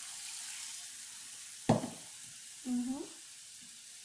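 Wok of duck in spice paste sizzling as water is poured in and stirred with a wooden spatula; the hiss is strongest over the first second or so, then settles to a steady simmer. A single sharp knock comes a little before the middle.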